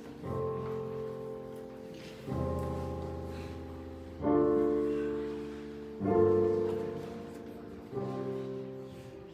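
Piano playing slow chords, a new chord struck about every two seconds and left to ring and fade.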